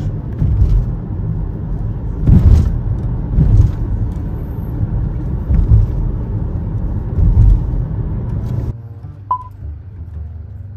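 Car road noise heard from inside the cabin while driving: a steady low rumble of tyres and engine, broken by a few heavier thumps. About 9 seconds in this gives way to quieter background music with plucked strings.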